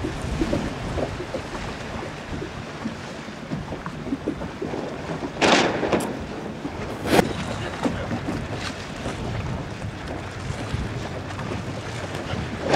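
Wind rushing on the microphone over choppy water, with two short, louder rushes a little past halfway through.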